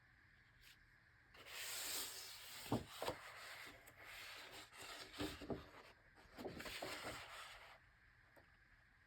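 Pages of a large oversized hardcover book being turned: paper rustling and sliding for several seconds, with a few soft thumps as pages settle.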